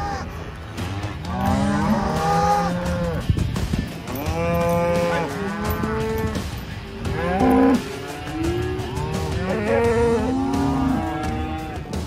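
A herd of cattle mooing, many overlapping calls of different pitches one after another, over a steady low rumble.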